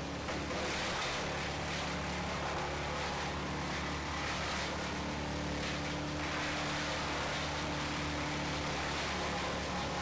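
An engine running steadily at a constant speed, a low even drone.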